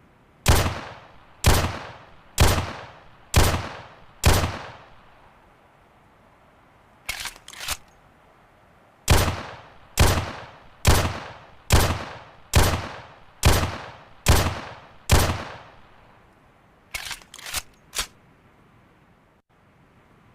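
11.4mm pistol fired in single shots about one a second, each with a ringing tail: five shots, then three quieter short cracks, then eight more shots, then another three quieter short cracks near the end.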